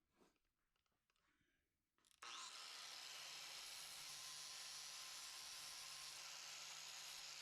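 Near silence for about two seconds, then a faint, steady hiss with a low hum underneath.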